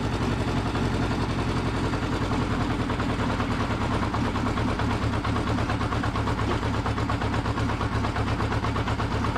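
Air-cooled inline-four engine of a 1972 Honda CB500 Four motorcycle idling steadily with a fast, even beat, freshly rebuilt and running while its idle speed is being set.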